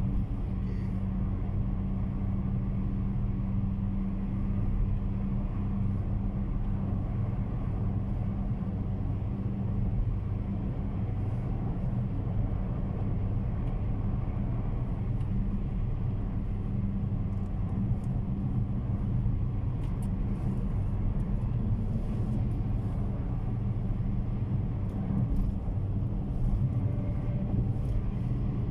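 Steady low drone of a car's engine and tyre noise, heard from inside the cabin while driving along at a constant speed.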